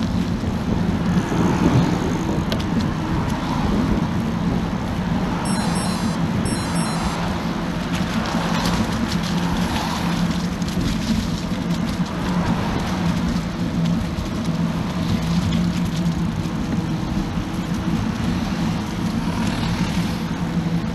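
Steady rumble of riding a bicycle along a city road, picked up by a bike-mounted camera, with cars passing in the next lane.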